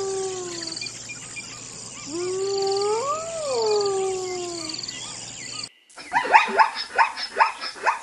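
Spotted hyena whooping: one long whoop tails off at the start and a second rises and falls about two seconds in, with insects chirring behind. Near the six-second mark it cuts to a fast run of short, high cackling calls, the hyena's giggle.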